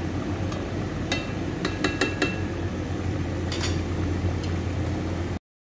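A ladle stirring beef stew in a granite-coated pot, clinking against the pot several times, over a steady low hum. The sound cuts off abruptly near the end.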